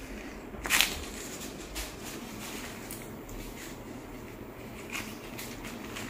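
Gloved hands and a tissue rustling against hair and skin while the head is held, with one louder brief rustle about a second in and a few faint ticks after, over a steady low room hum.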